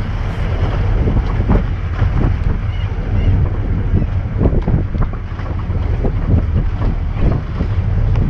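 Safari jeep driving on a rough dirt track: a steady low rumble of engine and road, with frequent irregular knocks and rattles from the bumpy ride, and wind buffeting the microphone.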